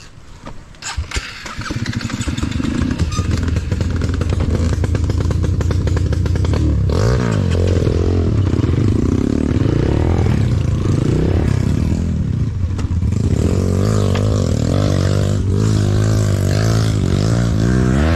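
Dirt bike engine running, growing louder over the first few seconds after a few clicks. From about seven seconds in it revs up and down repeatedly as it rides.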